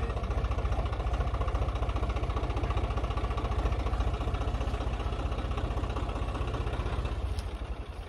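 Swaraj tractor diesel engine running close by with a steady, fast firing beat; it drops away about seven and a half seconds in.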